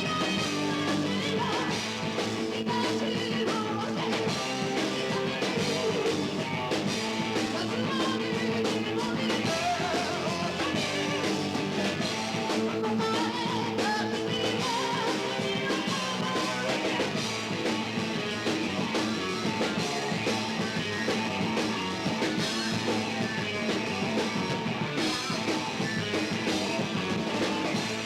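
Live heavy metal band playing at full tilt: two distorted electric guitars, bass guitar and drum kit in a dense, steady mix with no breaks.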